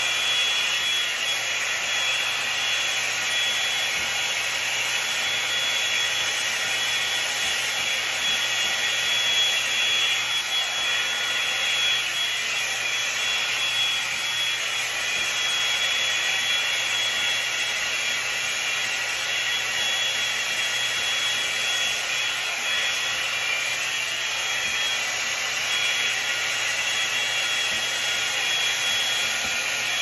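Revlon One-Step hot-air brush running steadily as it is drawn through hair: a constant rush of blown air with a thin high whine running through it.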